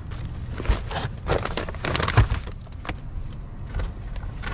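Shopping bags rustling and being handled in a car's cargo area, with many short crinkles and knocks and two dull thumps, about a second in and just after two seconds, over a low steady rumble.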